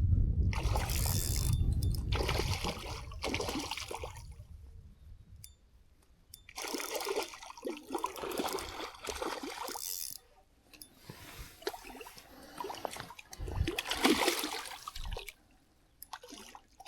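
Water splashing and sloshing in irregular bursts as a small hooked rainbow trout thrashes at the surface while it is played in.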